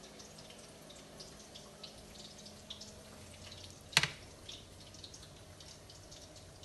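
Faint, irregular small ticks of fingers pressing and pleating soft momo dough around a minced chicken filling, with one sharp knock about four seconds in.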